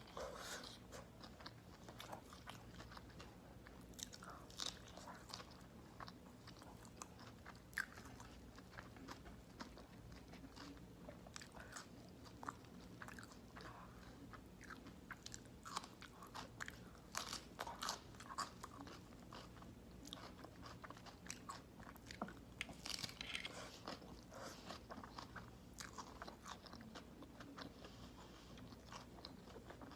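Close-miked eating sounds: a person biting and chewing, with many small crisp crunches and wet clicks scattered throughout.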